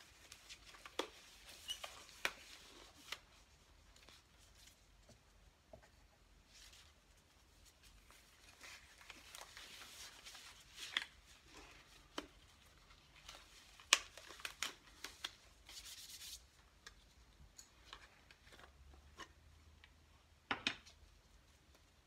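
Faint, scattered rubbing and crinkling with light taps and clicks as gloved hands work over a screen-printing frame and its vinyl stencil, with a sharper knock near the end.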